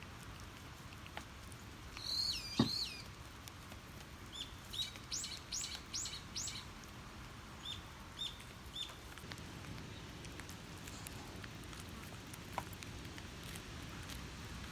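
A small bird chirping: a fast twittering phrase about two seconds in, a run of five or six quick rising notes, then three short notes, over a faint steady hiss. A sharp tick sounds in the middle of the first phrase, with a fainter one near the end.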